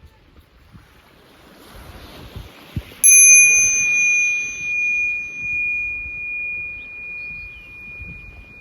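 A meditation bell struck once about three seconds in, ringing on with a slow wavering fade, the signal that the three-minute session is over. Ocean waves wash steadily underneath.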